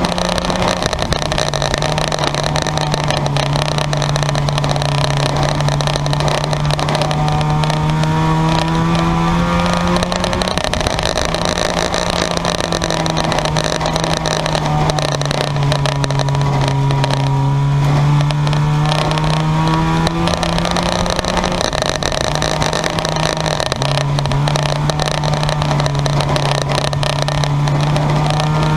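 Engines of junk yard race cars running hard around the speedway oval. The engine note rises and falls slowly every several seconds as they speed up and slow down.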